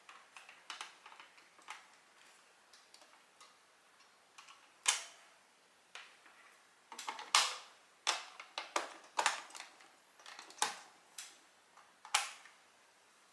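Scattered clicks and taps of small plastic parts being handled as a power adapter and cable are plugged in. The sharpest clicks come about five, seven and twelve seconds in.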